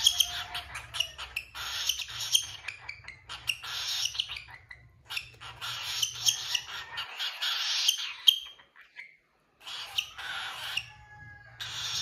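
Hand-fed cockatiel making raspy, hissing feeding calls in repeated bursts of about a second each, with short pauses between them, as it takes food from a syringe.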